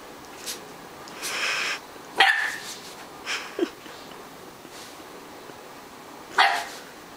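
Catahoula puppy barking, about six short barks in an uneven run with a long pause before the last one about six seconds in.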